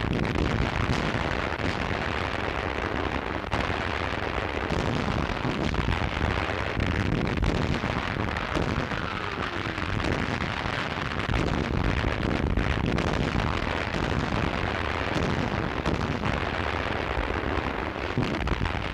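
Continuous artillery bombardment: many overlapping gun blasts and shell explosions in a dense, unbroken barrage.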